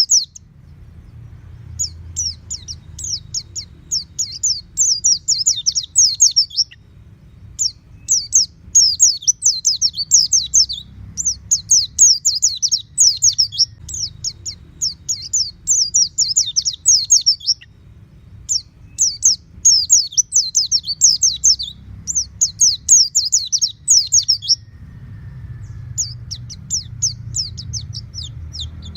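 White-eye (pleci) singing in long bursts of rapid, high-pitched, down-slurred twittering notes, each phrase a few seconds long with short pauses between. A faint low rumble runs underneath.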